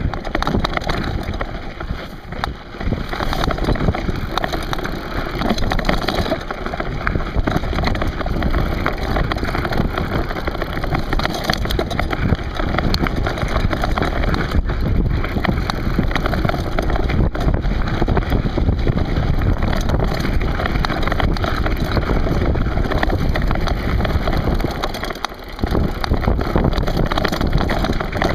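Mountain bike rolling down a loose, rocky gravel trail: continuous crunching of tyres over stones with many small knocks from the bike, and wind buffeting the microphone.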